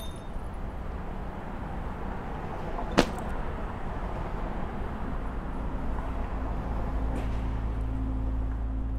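City street ambience with a steady traffic rumble, and one sharp knock about three seconds in. A low steady hum builds near the end.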